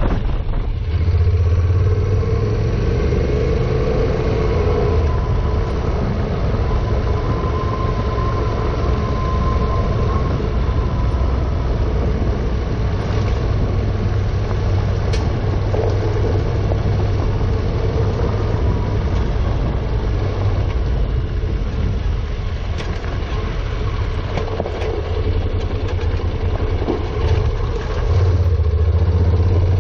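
Honda NC700X's parallel-twin engine running at a steady, low road pace, mixed with tyre noise on gravel and a few small knocks. The engine hum gets louder near the end.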